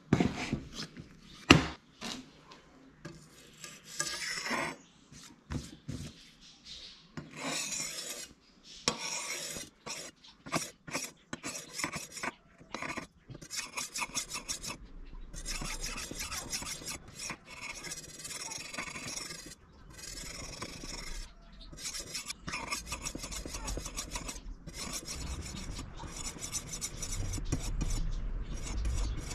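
A few sharp knocks as a wooden box is opened. Then a steel spear blade, forged from car spring, is stroked back and forth across a sharpening stone, a long run of rasping strokes.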